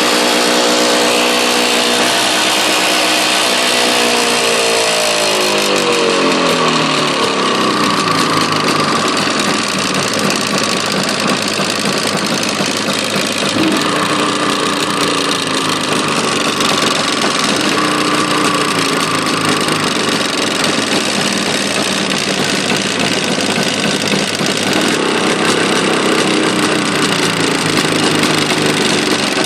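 Jawa motorcycle engine running with a knock from inside the engine. Its revs fall steadily over the first several seconds, then it runs on evenly and is briefly revved up twice.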